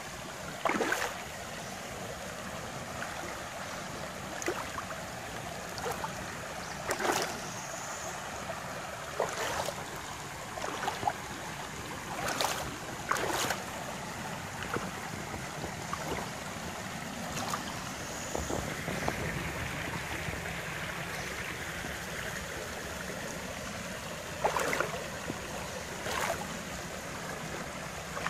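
Shallow rocky creek running over stones: a steady rush of flowing water, broken every second or two by brief, louder splashes and gurgles.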